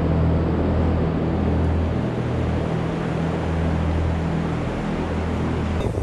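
Steady mechanical drone of a running motor or engine, a low even hum with noise above it, which cuts off suddenly just before the end.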